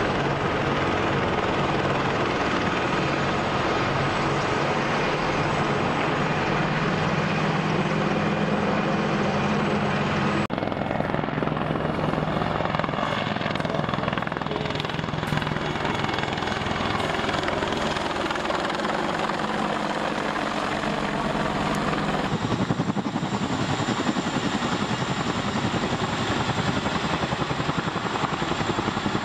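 Military helicopters flying past. First an AH-64 Apache attack helicopter, a steady rotor and turbine drone with a whine. The sound changes abruptly about a third of the way in, and again near three quarters of the way. In the last part a pair of CH-47 Chinook tandem-rotor helicopters fly by with a fast, even beat of rotor blades.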